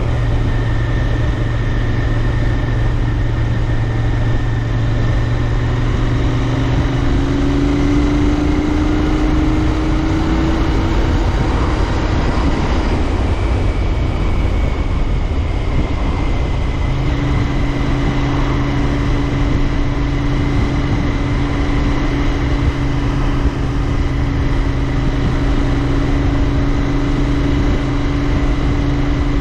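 Royal Enfield Interceptor 650's parallel-twin engine running under way, with wind noise over the microphone. The engine pitch rises for a few seconds about a quarter of the way in, changes around the middle, and then holds steady for the rest.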